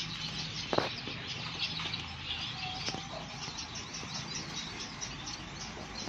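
Many small caged finches chirping and twittering together in a constant chatter, with a sharp click a little under a second in.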